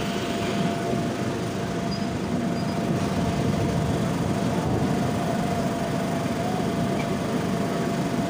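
MEMU electric passenger train running steadily along the track, a constant rumble of wheels and rushing air heard from an open window at the carriage side.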